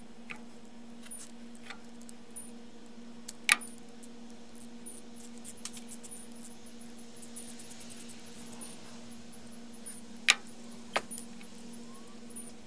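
Small metal clicks and ticks from a Leatherman multitool being handled and taken apart, with two louder sharp clicks, one a few seconds in and one near the end, and a run of quick small ticks in the middle, over a steady low hum.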